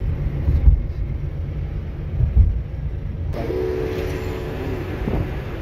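A car driving, heard from inside the cabin: a low engine and road rumble with uneven swells. About three seconds in it switches suddenly to a brighter, hissier road and wind noise with a steady hum.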